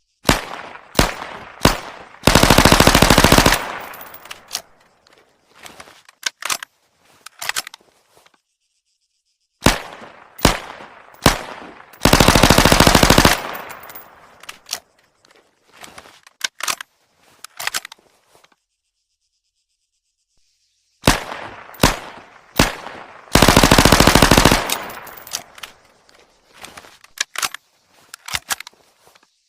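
VZ 61 Škorpion submachine gun, chambered in .32 ACP, firing. The sequence plays three times: a few single shots, then one fully automatic burst of about a second and a half, then scattered single shots that trail off.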